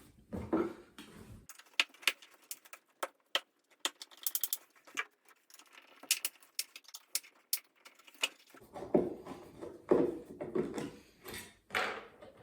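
Irregular sharp clicks and metallic taps of hand tools working on the toilet's fixing screws, with a few louder knocks in the last few seconds.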